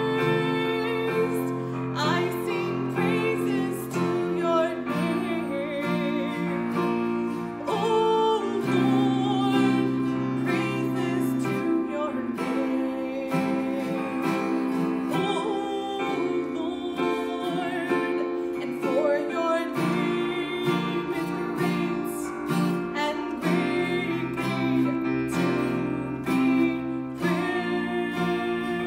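A woman singing a worship song, accompanied by an acoustic guitar and a Korg electronic keyboard holding chords.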